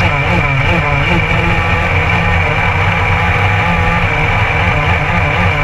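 Go-kart engine running at racing speed, heard from onboard the kart, its pitch wavering up and down with the throttle.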